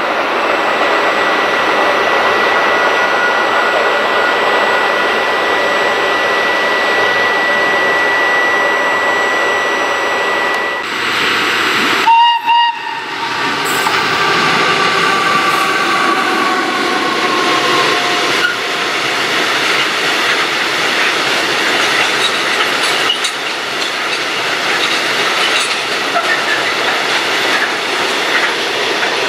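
Train running through the station with steady loud rolling and wheel noise. A brief horn blast sounds about twelve seconds in, followed by a slowly falling whine for a few seconds.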